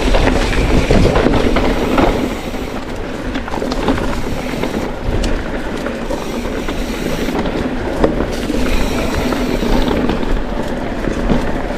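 Mountain bike rolling over a rough dirt and stone trail: a constant rattle of tyres over stones and small knocks from the bike.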